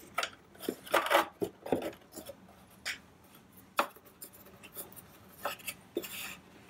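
Hands working the electric motor loose in a Toro Power Shovel's plastic housing during disassembly: scattered knocks, clicks and rattles of plastic and metal parts, with a cluster of them about a second in and a few single knocks later.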